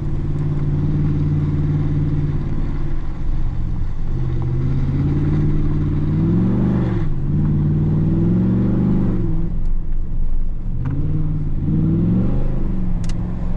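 Ford SVT Raptor's 6.2-litre V8 pulling a steady note at first, then revving up and falling back sharply three times as the throttle is opened and closed.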